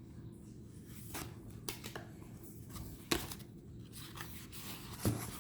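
Tarot cards being handled: soft rustling and sliding of cards, with a few sharp taps and clicks, the loudest about three seconds in and another near the end.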